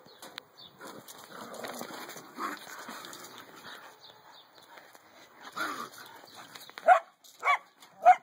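A dog squaring off with a raccoon: low scuffling noise, then three loud, sharp barks about half a second apart near the end.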